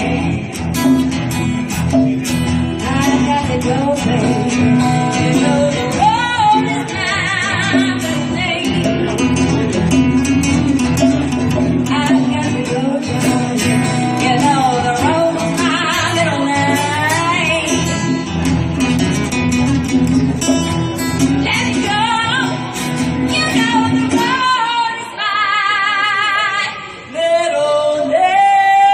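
Live band music: a singer with vibrato over guitar, bass and percussion. About 25 seconds in the bass and band drop out, leaving the voice holding long vibrato notes with light accompaniment.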